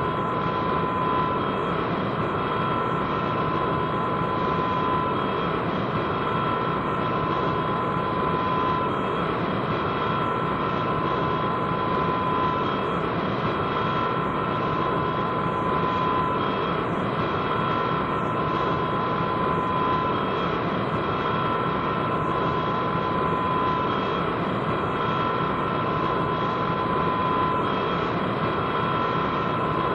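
Sound effect of a powerful craft's engine running steadily: a constant rumble with high whining tones held on top.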